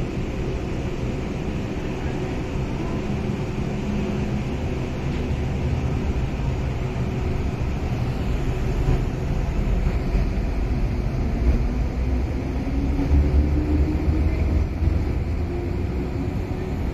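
MTR Kwun Tong line Metro Cammell M-Train running, heard from inside the car: a steady rumble of wheels on track, with a motor whine rising in pitch about eleven seconds in.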